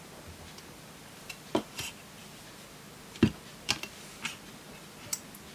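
Scattered light clicks and taps of small tools and a capacitor being handled on a circuit board, about seven in all, the loudest a little over three seconds in.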